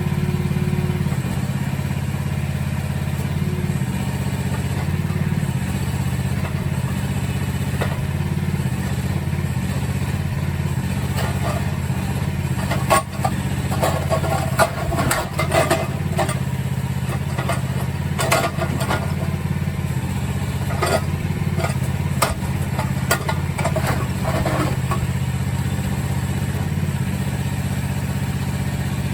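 Mini excavator engine running steadily. Partway through comes a run of knocks and clatter as cinderblock and concrete pieces are broken up and dropped.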